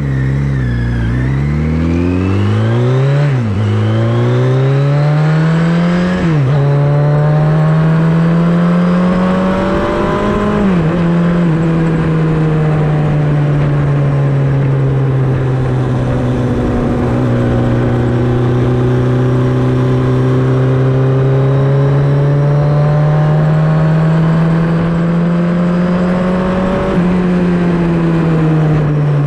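Kawasaki Z1R Turbo's turbocharged inline-four running through a home-made stainless steel exhaust under way: it revs up through the gears with a sharp drop in pitch at each upshift, three in the first ten seconds. It then cruises with the engine note rising and falling gently, and shifts up once more near the end.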